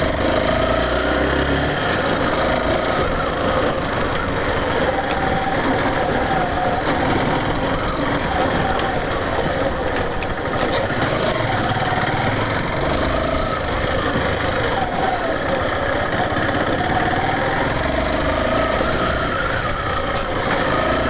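Yamaha Factor 150 motorcycle's single-cylinder four-stroke engine running as the bike is ridden, its pitch wavering up and down with the throttle over a steady rush of noise.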